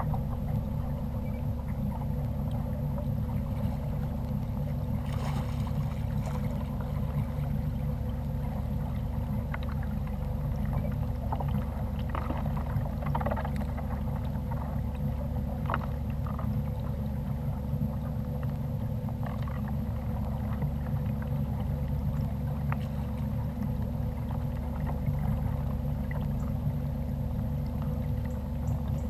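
Steady low rumble with a faint constant hum, the noise of a fishing kayak on the water picked up by its mounted camera. Scattered light clicks near the middle come from fishing tackle being handled.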